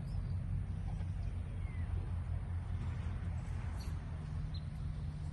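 Outdoor pasture ambience: a steady low rumble with a few faint, brief bird chirps.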